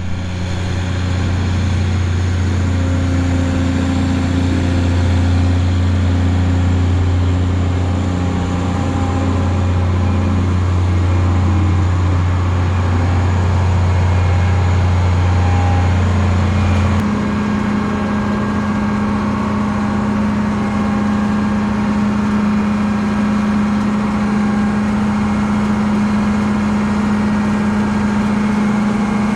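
Combine's diesel engine running steadily. A little past halfway its note steps up to a higher steady hum.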